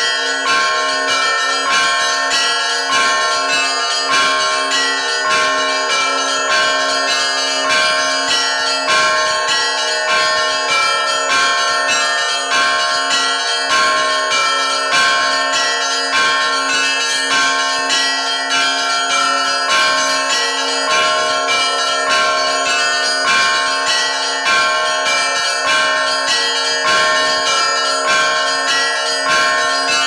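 Russian Orthodox bell ringing: a set of small church bells struck by their clappers, worked by hand-pulled ropes, in a fast, steady repeating rhythm of overlapping bell tones that ring on between strikes.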